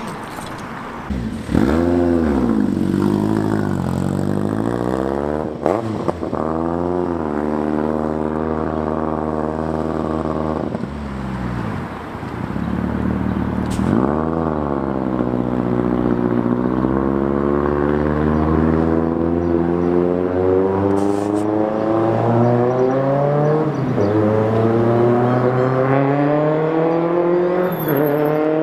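Vehicle engines accelerating through the gears: a loud engine note climbs steadily, drops at each gear change and climbs again, several times over.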